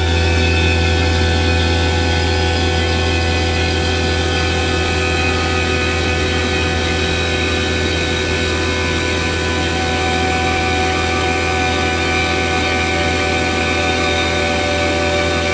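Fieldpiece VP85 two-stage rotary vane vacuum pump running steadily with a constant low hum while it evacuates the refrigerant circuit. The system is being pulled down through the thousands of microns.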